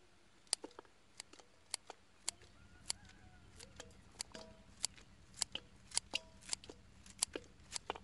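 Scissors snipping over and over, cutting something into small pieces: about twenty sharp, uneven snips, a little closer together after about two seconds.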